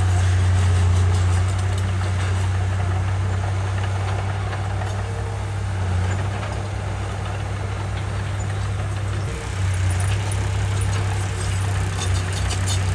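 Komatsu bulldozer's diesel engine running with a steady low drone, easing off a little about a second and a half in and picking up again about two-thirds of the way through.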